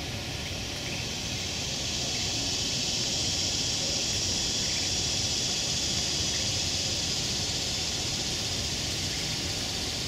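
Insects buzzing in a steady, high drone that swells about two seconds in and eases off near the end.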